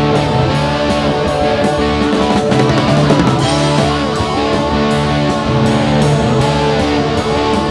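Electric slide guitar solo on a Gibson Les Paul, the slide bending notes up and down, over a rock backing with held low notes and a steady beat of about two strokes a second.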